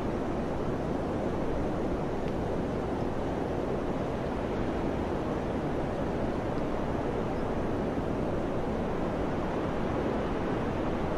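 Wind blowing steadily, a low even rush with no gusts or breaks.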